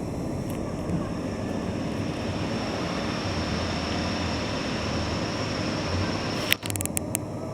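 Steady low rumble of a vehicle in motion, with a sharp click and a brief dropout about six and a half seconds in, followed by a few smaller clicks.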